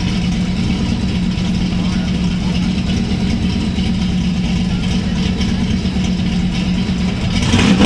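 Ford Mustang engine idling steadily, then starting to rev right at the end.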